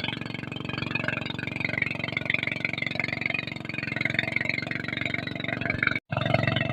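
An engine running steadily, heard from aboard the vehicle, with a brief dropout about six seconds in.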